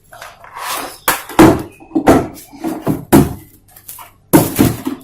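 A series of about six sharp, irregular clacks and knocks from handling a portable gas stove, its metal body and latch parts knocking together.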